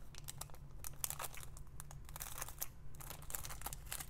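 Small plastic bag of diamond-painting drills crinkling as it is handled, a faint, irregular run of crackly rustles.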